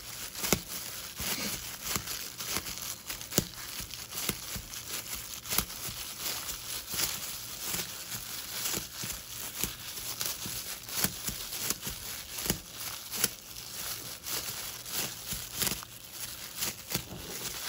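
Plastic gloves crinkling, with irregular sharp clicks, as gloved hands press sticky epoxy putty into a hole in a plastic water tank.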